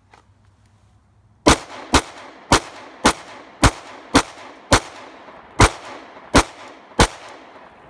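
A Glock 19 Gen 4 9mm pistol firing a string of ten shots, mostly about two a second, with a slightly longer gap before the last three. Each shot trails off in a short echo.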